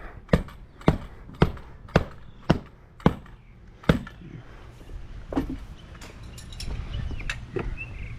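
Sharp, evenly spaced strikes, about two a second, that stop about four seconds in, followed by a few fainter, scattered knocks.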